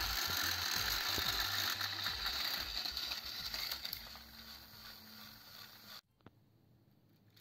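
Small electric motors and plastic gearboxes of battery-powered toy train engines whirring and grinding as two engines push against each other on plastic track. The whirr fades about four seconds in and cuts off suddenly about six seconds in.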